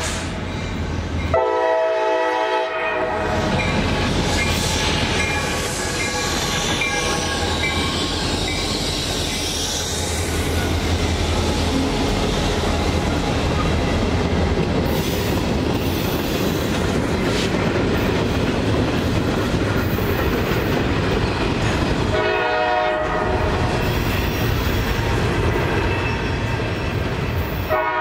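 CSX freight train's diesel locomotive horn blowing a blast as the train nears a grade crossing. The locomotives then rumble past close by, followed by freight cars and covered hoppers rolling by with the clickety-clack of wheels over rail joints. The horn sounds again about two-thirds of the way in and right at the end.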